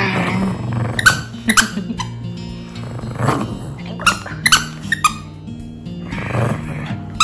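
Bichon frisé growling playfully while tugging on a plush fish toy, in three rough bursts. Background music plays throughout.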